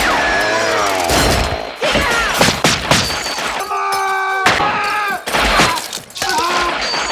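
Violent horror-film soundtrack: crashing and thudding impacts over music, with shrill pitched sounds that glide up and down.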